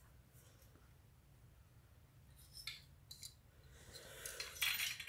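Handling noise of small toy-kit parts: a few short scrapes, then a longer rustle about four seconds in.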